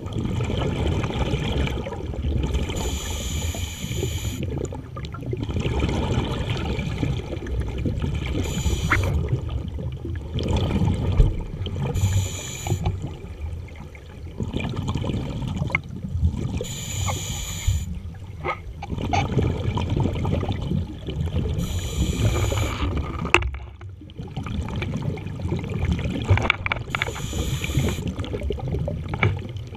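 Underwater scuba breathing through a regulator, heard close up: a short hissing inhale about every four to five seconds, with the rumbling gurgle of exhaled bubbles in between.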